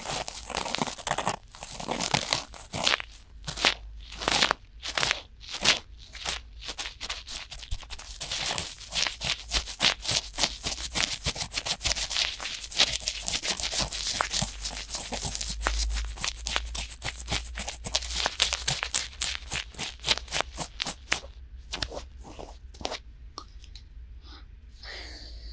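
Cotton swabs rubbing and scratching inside the silicone ears of a binaural dummy-ear microphone, both ears at once, in rapid crackly strokes. The strokes thin out and stop about 22 seconds in.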